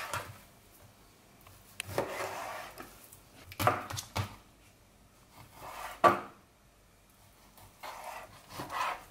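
Chef's knife slicing raw chicken breast on a plastic cutting board: several drawn strokes a second or two apart, some ending in a sharp knock of the blade on the board.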